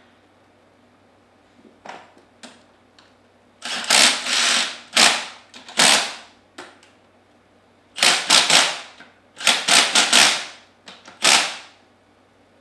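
Cordless impact wrench hammering in several short bursts, running down the head bolts of a Comet P40 diaphragm pump. There are a few light metal taps about two seconds in, before the first burst.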